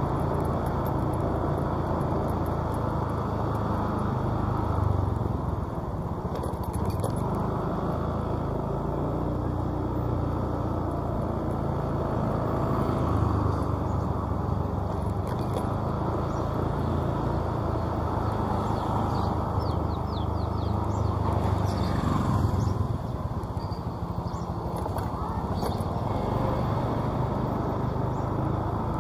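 Steady low engine hum and road noise from a vehicle on the move, continuing without a break.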